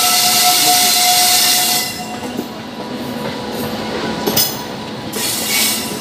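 Indian Railways passenger train rolling slowly over points, heard from the open coach door: a loud hiss with a faint steady tone for the first two seconds, then a quieter rumble of wheels on rails with a couple of sharp clacks over the rail joints.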